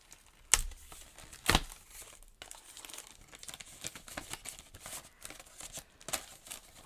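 Stencil packaging being handled and opened: two sharp clicks about half a second and a second and a half in, then light crinkling and rustling of card and plastic as the stencil is slid out.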